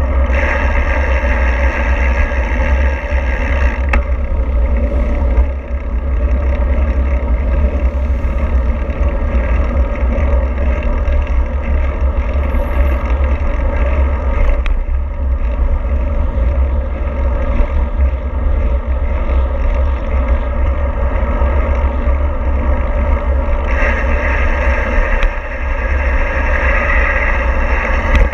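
Steady running noise of a moving vehicle: a heavy low rumble under a continuous hiss, with a brighter hiss rising in for the first few seconds and again near the end.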